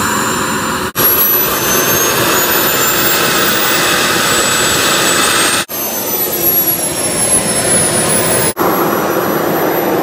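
Small gas-turbine engine of a large radio-controlled model jet running, a steady rushing roar with a high whine. The whine climbs slowly for several seconds, then falls away, and the sound breaks off abruptly three times.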